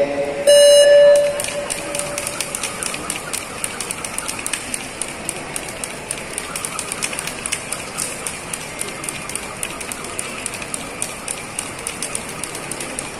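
A loud electronic start beep about half a second in, lasting under a second, then many skipping ropes slapping the hard floor in quick, overlapping clicks as several jumpers skip at once.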